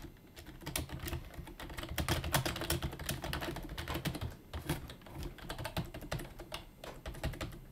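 Fast typing on a Sharkoon Skiller SGK5 rubber-dome keyboard: a dense run of quiet key taps, quieter than a mechanical keyboard, thinning out near the end.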